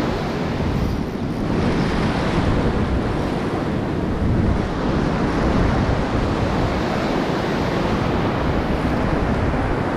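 Ocean surf breaking and washing up over the sand in a steady wash of white water, with wind rumbling on the microphone.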